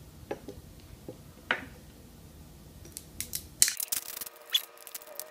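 A glass cutter's wheel scraping a label on a glass bottle in two short strokes. Then, from about three seconds in, the label is peeled off the glass with a run of sharp crackling and tearing.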